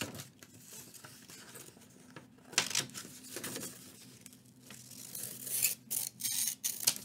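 Scissors cutting paper: a single snip about two and a half seconds in, then a quick run of several snips near the end.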